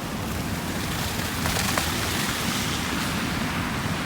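Steady rushing outdoor noise in a city snowstorm: wind on the microphone with a fluctuating low rumble, mixed with street traffic.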